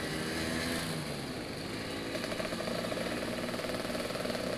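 Vespa scooter engine running steadily while riding, its note rising a little about two seconds in, with road and wind noise.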